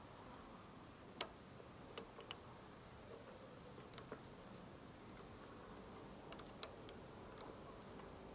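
Near silence broken by a handful of faint, irregular clicks: a knife and wrench on the accelerator-pump adjusting nut of a PZ30 carburetor, the rod held still while the nut is turned. The clearest click comes about a second in.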